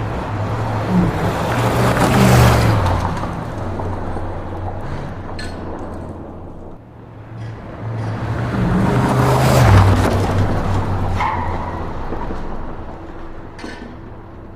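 Muscle car driving past at speed twice, its engine and tyre noise swelling to a peak about two seconds in and again near ten seconds in, each time fading away afterwards.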